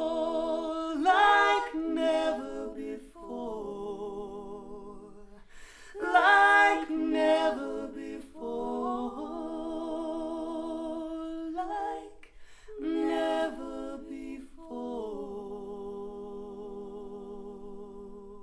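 Female voice singing wordless, unaccompanied held notes with vibrato, ending on a long note that fades out. It is recorded playing back over Harbeth SHL5+ loudspeakers driven by a Willsenton R300 valve amplifier.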